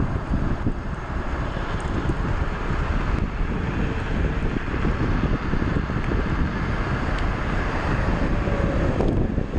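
Wind buffeting the microphone on a moving electric off-road bike: a steady rushing noise, heaviest in the low end, with no clear motor sound above it.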